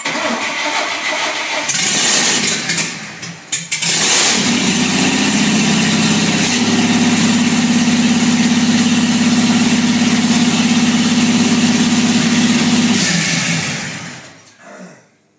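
Vintage Chevrolet pickup's engine cranked over and firing, with a stumble about three seconds in. It catches again and runs steadily at a fast idle for several seconds, then dies away near the end.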